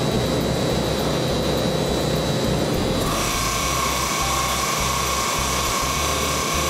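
Industrial production machinery running steadily. About three seconds in, a steady high whine joins it.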